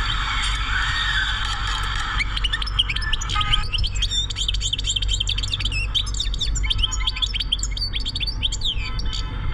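European goldfinch singing: from about two seconds in, a fast, unbroken run of twittering chirps and trills, over a steady low rumble.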